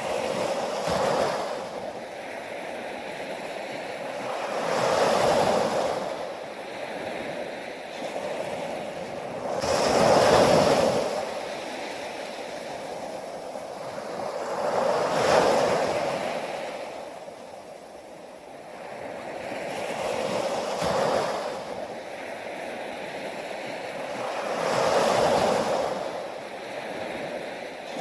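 Ocean waves washing onto a shore, each wave swelling and fading about every five seconds.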